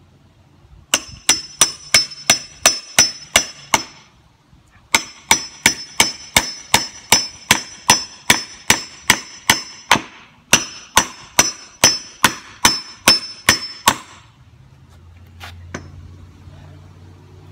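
Claw hammer striking a nail in the top of a wooden 4x4 post, quick strokes about three a second with a bright metallic ring on each. The strokes come in three runs, pausing briefly about 4 and 10 seconds in, and stop about 14 seconds in.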